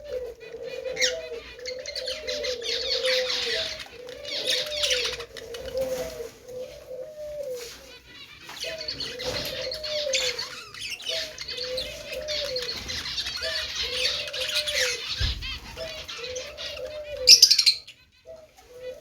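Budgies chattering and warbling with many quick high chirps. Under them a low cooing call repeats about once a second. A brief, loud, high squawk-like burst comes near the end.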